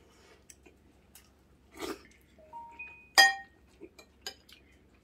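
Eating utensils knocking against dishes: a few light clicks and one sharp, ringing clink a little after three seconds in.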